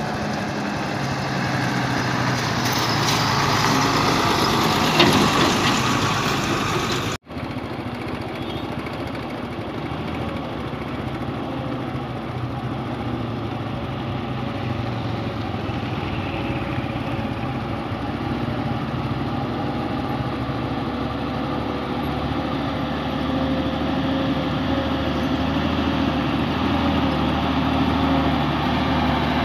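Heavy diesel truck engines running as trucks drive past on a gravel road, a steady low engine drone that swells as the first truck passes. The sound breaks off for an instant about seven seconds in, then another truck's engine grows louder toward the end.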